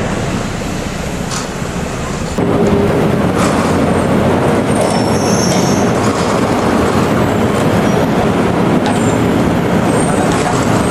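Heavy machinery running with a loud, steady mechanical noise, with a few faint high squeals. It gets louder about two and a half seconds in.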